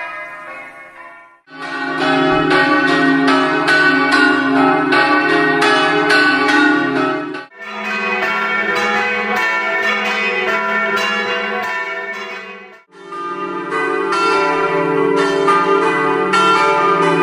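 Church bells ringing in quick repeated strokes. Several separate recordings are cut together, with abrupt changes about a second and a half in, midway and near the end.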